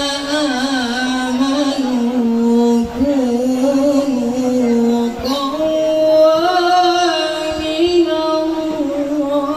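Qur'an recitation (tilawah) by a male reciter: a single voice chanting in long, held, ornamented melodic phrases, with short breaks for breath and a step up in pitch about halfway through.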